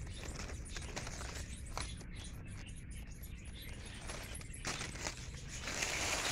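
Light scratching and rustling of dry leaves and soil over a steady low rumble, with a louder rustle near the end.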